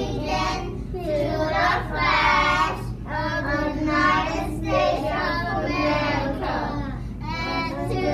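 A class of young children's voices chanting together in unison, in short phrases with brief pauses between them: a class reciting the Pledge of Allegiance.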